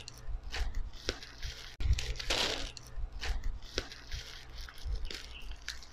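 Bubble wrap crinkling and crackling as it is handled and pulled off a small box, with a longer tearing rasp about two seconds in.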